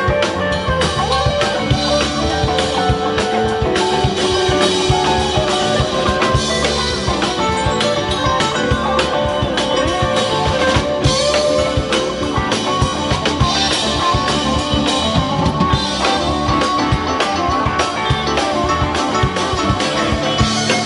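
Live rock band playing, with electric guitars, a drum kit and keyboards.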